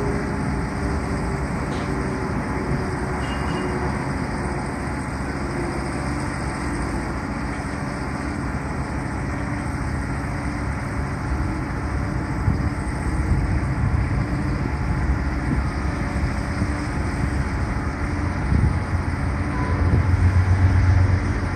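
Heavy-haul truck's diesel engine running steadily as the rig moves slowly. A deeper, louder rumble comes in for the last second or two.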